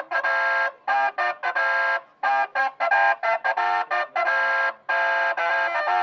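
Novelty musical car horn on a customised 1975 Chevrolet, playing a quick tune of about a dozen short notes, each a chord of several tones.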